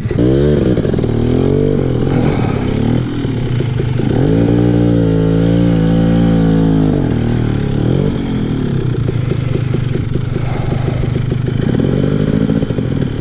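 KTM 300 two-stroke dirt bike engine revving up hard, then working on and off the throttle up a steep rocky climb, its pitch rising and falling. It holds high revs for a few seconds near the middle, then runs more steadily until it cuts off at the end.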